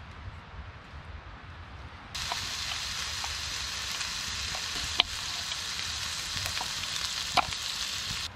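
Bacon strips sizzling in a hot pan on a tent stove, the hiss starting suddenly about two seconds in. Twice a sharp knock cuts through it, a knife striking the wooden cutting board.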